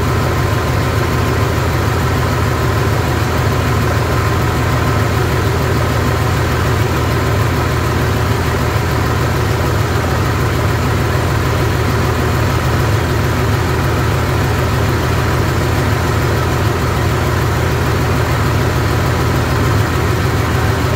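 Freshly rebuilt six-cylinder Perkins diesel engine running steadily at an even speed during its test run-in.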